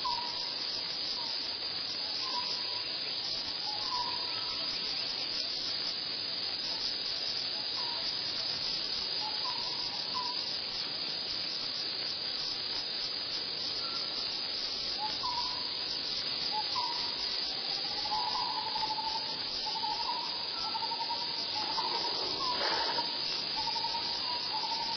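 Forest insect chorus keeping up a steady hiss, with short high chirps repeating every second or two that run together into a longer wavering trill in the second half. A brief louder sound stands out about three seconds before the end.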